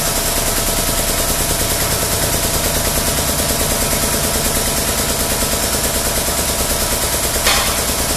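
Air-over-hydraulic ram's air-driven pump chattering rapidly and steadily as it drives the ram out on a tubing bender. A single sharp metallic clank near the end: the bender's anti-spring-back pin dropping into the first pin hole.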